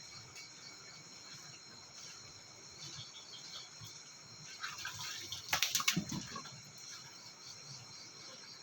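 Insects chirring steadily in the background, with a short burst of water splashing a little past halfway through.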